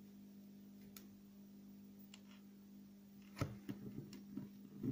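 Fishing line and hooks being handled at a table while leaders are tied on: a few sharp clicks and taps from about three and a half seconds in, the first the loudest, over a steady low hum.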